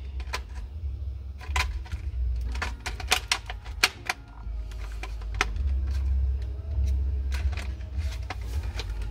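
Irregular sharp clicks and taps of instrument cluster parts being handled and slid together during reassembly, over a low steady rumble.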